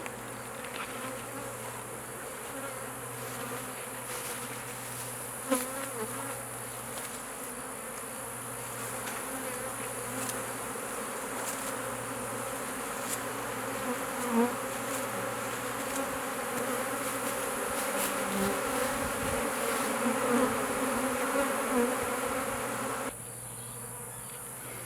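A swarm of honeybees, just shaken into a hive box, buzzing steadily with many wings humming together; the disturbed bees are getting louder over the first twenty seconds. Two sharp knocks come about five and fourteen seconds in, and the buzz drops off suddenly near the end.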